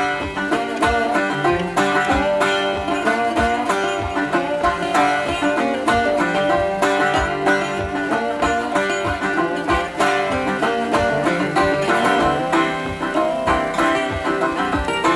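Background music: upbeat banjo-led bluegrass-style tune with plucked strings and a steady beat.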